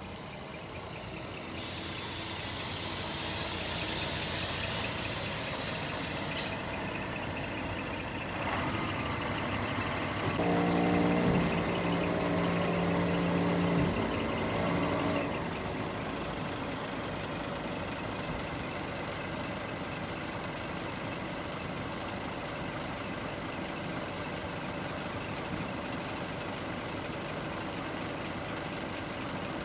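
Scania P420 tipper truck's diesel engine idling steadily while the tipper body is worked. A loud hiss of released air lasts about five seconds near the start, and a steady pitched whine follows for about four seconds in the middle.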